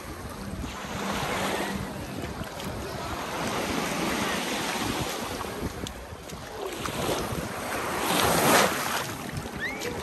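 Small sea waves washing up on a sandy beach, the surf swelling and falling, with the loudest wash about eight and a half seconds in.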